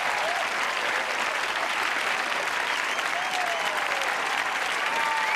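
Audience applauding steadily, with a few shouted whoops of cheering in the clapping.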